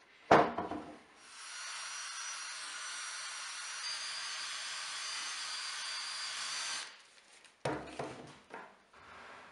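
Cordless drill spinning a wire cup brush against the rough face of a walnut slab, scrubbing off dirt and loose bark in a steady whir for about six seconds. A loud thud just before, as the slab is put down on the workbench, and a few knocks near the end.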